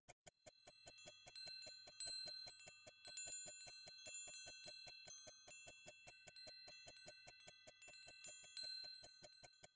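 Rapid, even ticking, about five ticks a second, with a cluster of high, bell-like ringing tones held over it from about half a second in.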